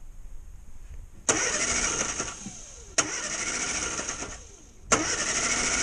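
Starter motor of a 1962 Morris Minor's four-cylinder A-series engine cranking in separate tries: about a second in, again with a fresh click at about three seconds, and once more near the end. The engine is slow to fire on a newly fitted ignition coil, which the owner calls normal for this car.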